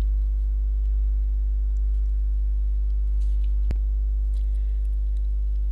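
Steady low hum with several evenly spaced tones, typical of electrical mains hum picked up in the recording, with a single click about three and a half seconds in.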